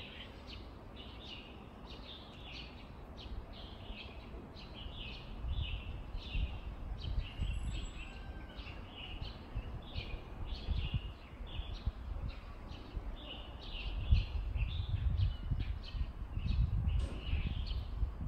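Small birds chirping over and over, about two short chirps a second, over a low rumble that swells about five seconds in and again near the end.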